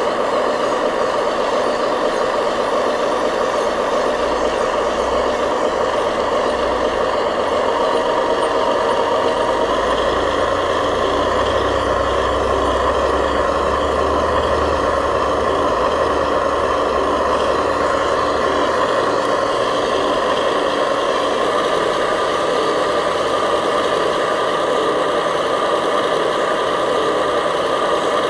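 Radio-controlled model truck running: a steady mechanical whine and hiss, with a deeper rumble joining about four seconds in and dropping away about eighteen seconds in.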